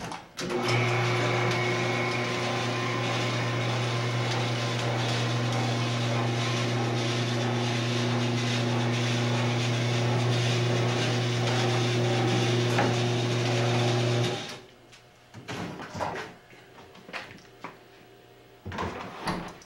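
Electric drive motor of a belt-and-screw-driven platform lift running under load with a steady hum, cutting off abruptly about 14 seconds in. A few light knocks follow.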